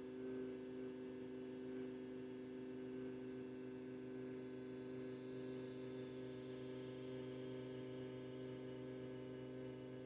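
Fiat Ducato 2.3's electric in-tank fuel pump running with a faint, steady hum after the ignition is switched on, then cutting off suddenly at the very end as its priming cycle finishes. The pump is now getting its 12 volts and runs its full prime.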